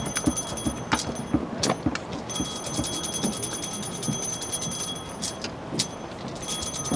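A small bell rung rapidly and continuously, with a steady high ringing that breaks off briefly about two seconds in and again near the end. Low thumps in a loose rhythm sound underneath.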